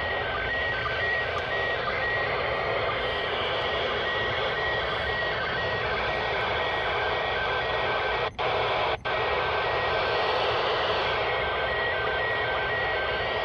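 Realistic PRO-43 handheld scanner receiving the International Space Station's slow-scan TV downlink: steady FM static with faint beeping tones alternating between two pitches underneath, a signal too weak to decode. The audio cuts out briefly twice, a little past eight and nine seconds in.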